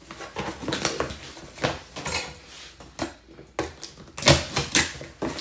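Butter knife cutting and prying through tough packing tape on a cardboard box: a string of short scrapes, taps and tape tearing, with a couple of louder sharp ones about four and a half seconds in.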